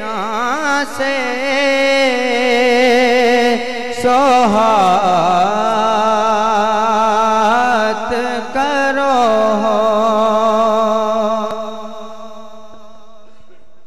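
A man singing a naat solo into a microphone, in long ornamented phrases with wavering, gliding notes. Near the end he holds one long note that fades away.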